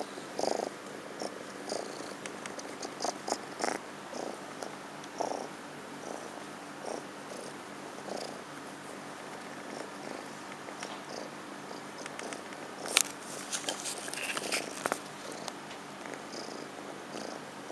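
Kitten purring steadily close to the microphone, with scattered soft knocks and rustles, the sharpest cluster about three-quarters of the way through.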